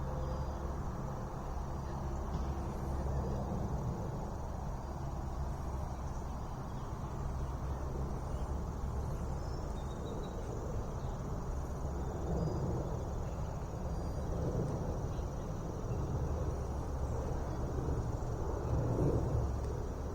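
Outdoor ambience: a steady high-pitched insect drone, such as crickets, over a constant low rumble of distant traffic.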